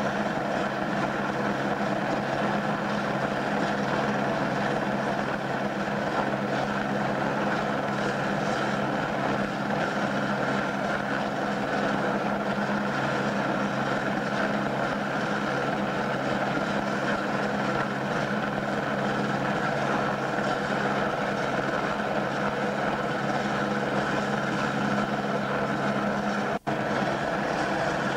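Helicopter hovering close by, a steady drone of rotor and engine. The sound drops out for an instant near the end.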